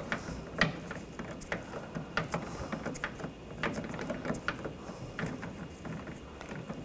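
Hand ratchet clicking in short, uneven strokes as it tightens the screw that holds the door handle and lock cylinder in place.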